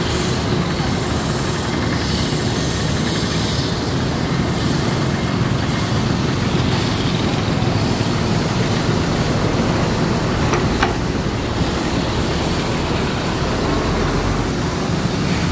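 Matador ME210LC-1 hydraulic excavator's diesel engine running steadily under digging load, with the hydraulics working the arm and bucket.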